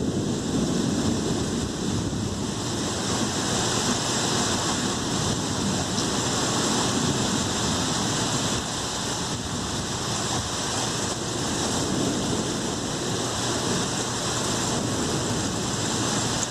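Heavy rain falling steadily in a thunderstorm, a dense even hiss, with a low rumble of thunder dying away in the first couple of seconds.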